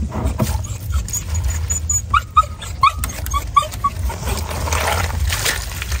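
A dog whimpering and yipping, with a few short rising whines about two seconds in and a quick string of short yips a little after. Clattering knocks and a low steady rumble run underneath.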